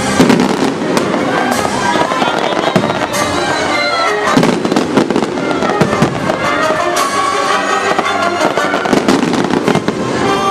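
Fireworks shells bursting in quick, irregular succession over the show's music soundtrack.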